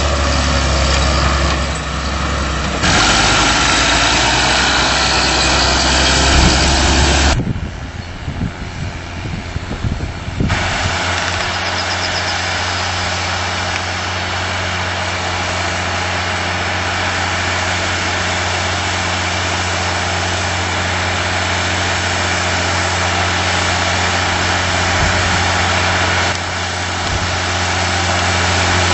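Steyr 8100 tractor's diesel engine running steadily under load while plowing, a constant engine drone that shifts abruptly in tone a couple of times in the first ten seconds, then holds a steady hum.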